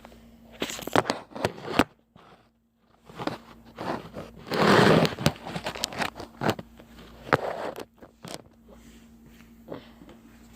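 Handling and clothing noise as a person gets up and moves about: scattered clicks and taps, with a short burst of rustling about five seconds in.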